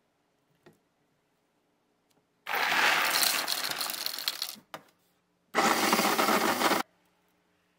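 Krups electric coffee grinder grinding whole coffee beans in two runs: about two seconds, then a short pause, then just over a second more.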